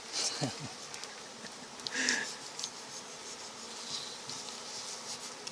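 Honeybees buzzing steadily around an apiary during the honey harvest, with a brief louder sound about two seconds in.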